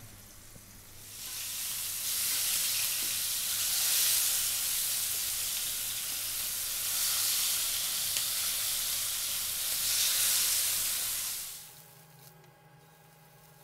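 Flour-coated slices of beef liver sizzling in hot sunflower oil in a frying pan, a steady hiss that starts about a second in and dies away near the end.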